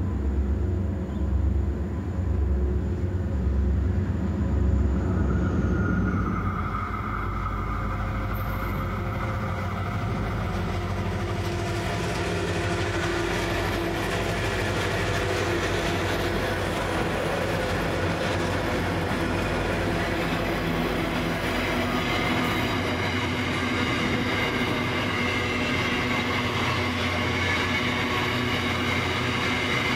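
Diesel locomotives of a freight train running at light power, their low engine throb strongest for the first several seconds. Then empty grain hopper wagons roll past with steady wheel and rail noise.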